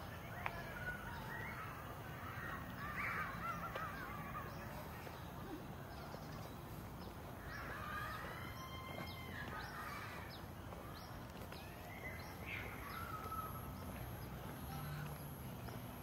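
Crows cawing in several bouts, with faint short chirps of small birds, over a low steady background hum.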